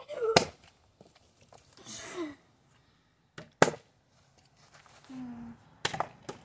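A plastic water bottle being flipped and knocking against a concrete block wall, three sharp knocks, the last as it lands upright on top of the wall. Short vocal sounds, a sigh-like falling sound and a brief hum, come between the knocks.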